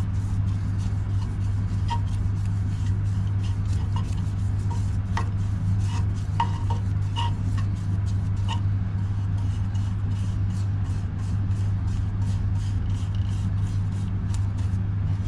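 Wood lathe motor running with a steady low hum while a brush is worked over the turning bowl, with light ticks on top that come faster in the second half.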